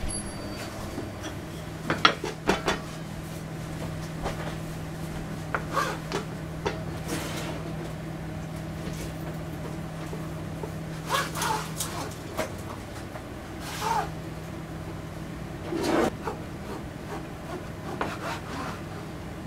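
Dough being worked on a cutting board: a wooden rolling pin rolling out the sheet, then a stainless bench scraper chopping it into strips against the board, heard as irregular soft taps, knocks and rubbing.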